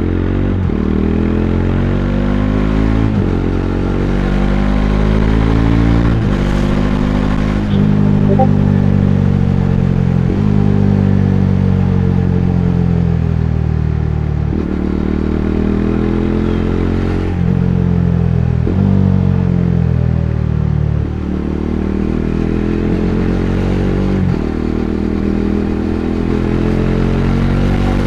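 Bajaj Dominar 400's single-cylinder engine running under way, its pitch climbing and falling as the rider accelerates and slows. The pitch jumps abruptly every few seconds at the gear changes.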